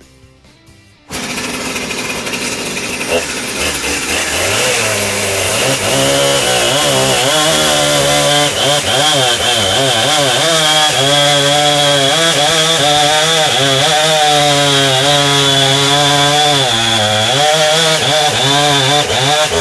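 Chainsaw running at full throttle, ripping lengthwise through a maple log to mill a slab, its engine pitch wavering continuously under the load of the cut. It starts abruptly about a second in.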